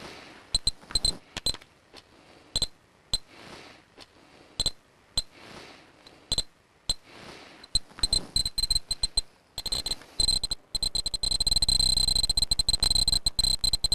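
Handheld Geiger counter clicking at random intervals, each click a short high chirp. The clicks come faster from about eight seconds in, and from about nine and a half seconds become a dense rapid rattle over a steady high alarm beep as it is held down by the contaminated ground: a higher radiation count.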